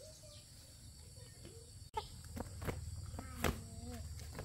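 Steady high-pitched chirring of insects, with a few sharp clicks and knocks in the second half.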